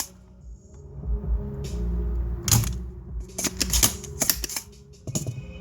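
Sharp clicks and taps of metal tools on an amplifier circuit board while burnt MOSFETs are desoldered: one about halfway in, then a quick cluster of several near the end.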